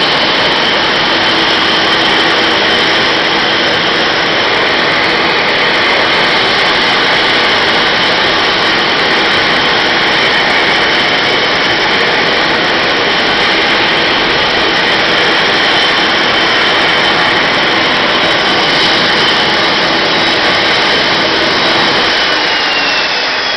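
Dash 8 Q300's Pratt & Whitney PW123 turboprop engines running with a loud, steady whine. Near the end the whine starts falling in pitch and the sound begins to fade as an engine spools down at shutdown.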